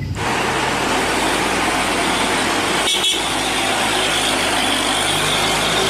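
A large truck's engine running, with road noise, in a steady wash of sound that breaks off briefly about three seconds in.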